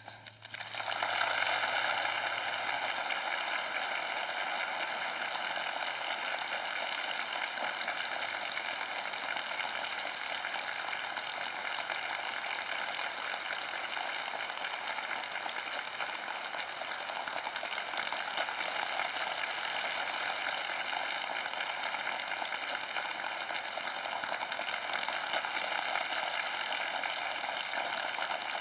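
An audience applauding: the clapping breaks out suddenly and keeps up steadily.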